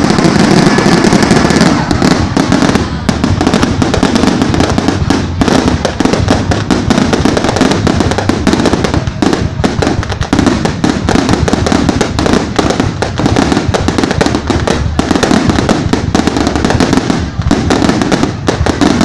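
Fireworks display going off without pause: a dense run of bangs and crackling bursts overlapping one another.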